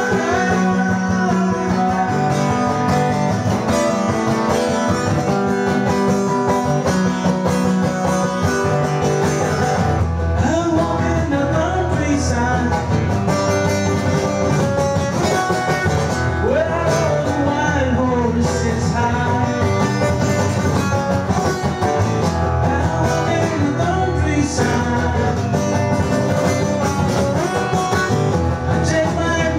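Acoustic guitar strummed and picked, played live, with a man singing along to it. The guitar plays alone for about the first ten seconds, then the voice comes in over it.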